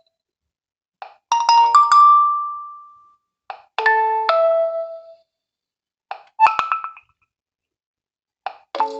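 Nokia 1.3 smartphone's speaker playing four short ringtone-style melodies one after another, each lasting about a second. Each one starts with a brief tick and ends with its notes ringing out, and the melodies are separated by short silences.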